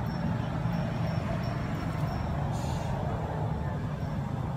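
Steady low rumble of a running motor vehicle engine, with a short hiss a little past halfway.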